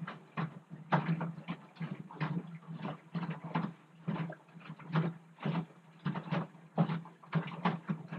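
Front-loading washing machine on a wash cycle, its drum turning: wet laundry and water sloshing and thudding against the drum a few times a second over a steady motor hum.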